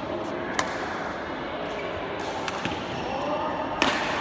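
Badminton rackets striking a shuttlecock in a rally: sharp cracks about half a second in, two fainter ones in the middle, and the loudest near the end.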